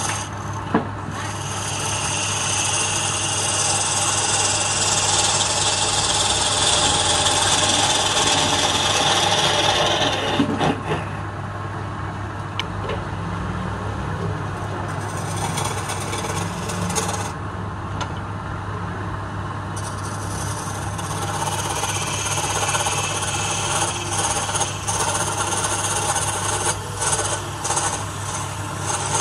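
Hand-held flat chisel scraping a palm-wood blank spinning on a wood lathe, over the lathe motor's steady hum. One long scraping pass of about ten seconds, then a pause, then several shorter passes.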